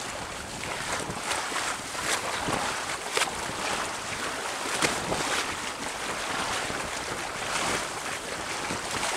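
Bow wave of a Mudhen 17 sailboat under sail, water rushing and splashing irregularly along the hull, with wind buffeting the microphone.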